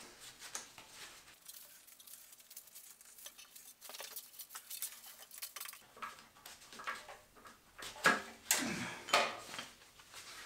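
Metal engine parts and hand tools clinking and clattering as they are handled during an engine teardown, with two louder clanks about 8 and 9 seconds in.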